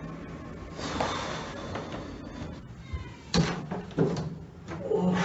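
Front door being unlatched and pulled open, with two sharp clunks about three and four seconds in, and a man groaning after them.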